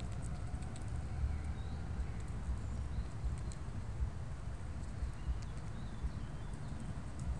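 Steady low rumble of wind on a small phone microphone, with scattered faint small clicks and a few faint high bird chirps in the distance.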